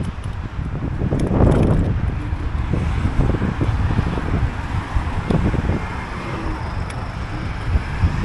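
Wind buffeting the microphone and road noise while riding a Teverun Fighter 11 electric scooter, with a gust about a second and a half in and a few light clicks.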